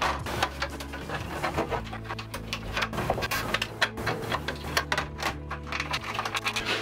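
Plastic RV refrigerator vent cover fitted with metal mesh insect screens being handled and pressed on, giving a dense run of small clicks and rattles, with soft background music underneath.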